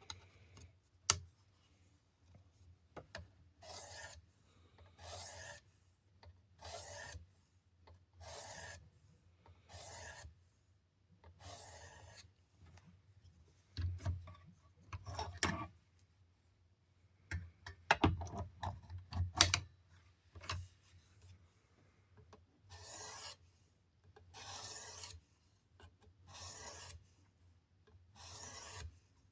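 800-grit sharpening stone of a Work Sharp Precision sharpener drawn along an OTF knife's edge in even scraping strokes, about one every second and a half. In the middle a run of clicks and knocks interrupts the strokes before they resume.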